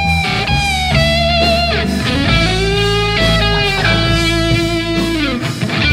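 Blues-rock band playing an instrumental passage: a lead electric guitar holds long notes with vibrato and bends up and down over the bass and drums.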